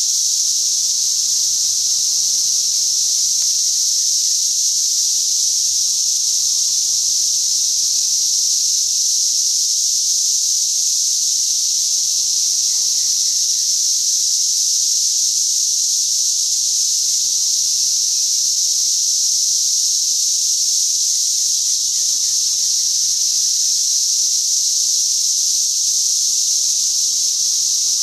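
Cicadas singing in chorus: a loud, steady, high-pitched buzz that holds unbroken throughout. This is the males' mating call.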